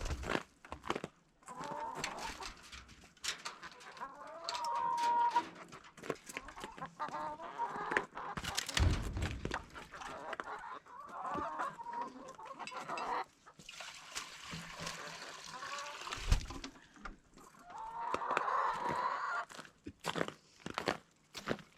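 Chickens clucking and calling in repeated bursts, with scattered sharp clicks and a low thump about nine seconds in.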